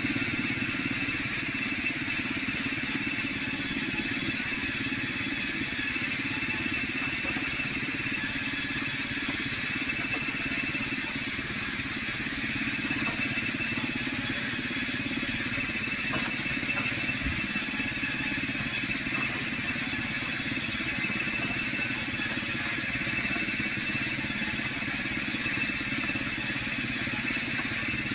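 Sawmill band saw running steadily as logs and boards are fed through the blade, a constant high whine over a lower motor hum.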